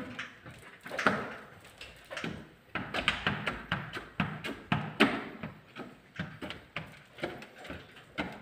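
Hand squeegee worked in quick strokes over wet tint film on a large flat glass pane, giving a run of short swishes and knocks from the pane, irregular and a few a second.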